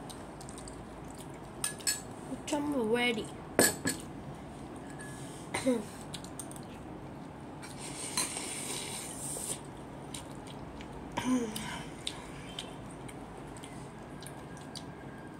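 Scattered clinks and knocks of tableware during a meal, the sharpest about three and a half seconds in, with a few short voice sounds in between.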